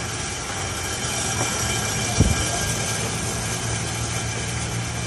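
Propane chile roaster running with Big Jim chiles tumbling in its motor-driven mesh drum: a steady hum with a hiss over it, and one sharp knock about two seconds in.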